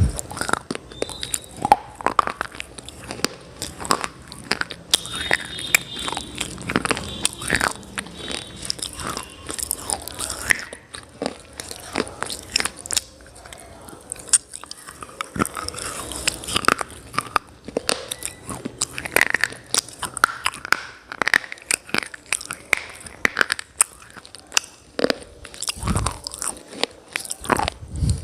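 A person biting into and chewing hard, brittle, dry clay-like pieces close to the microphone: sharp crunches come in quick, irregular succession throughout.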